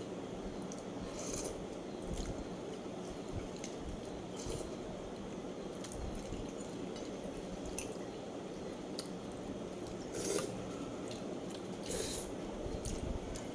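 Wet chewing and mouth sounds of someone eating meat, with occasional sharper smacks.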